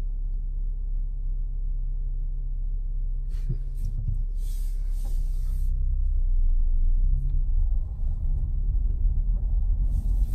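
Car driving slowly, a steady low rumble of engine and road noise heard inside the car, getting louder and rougher about six seconds in. A short hiss cuts in about four and a half seconds in.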